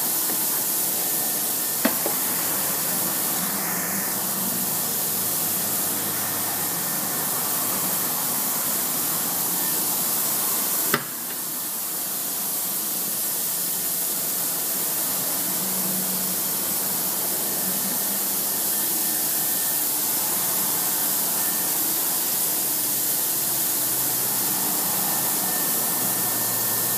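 Steady whooshing hiss of a CNC machine setup running, with a faint high steady tone over it. A light click comes about two seconds in and a louder sharp click about eleven seconds in.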